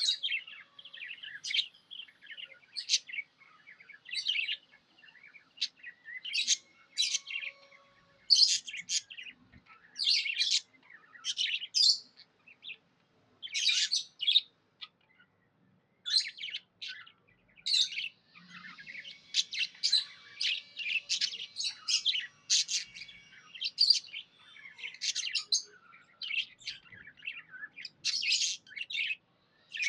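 Pet budgies (budgerigars) chirping: short, sharp chirps in quick runs with brief pauses, busiest about two-thirds of the way through.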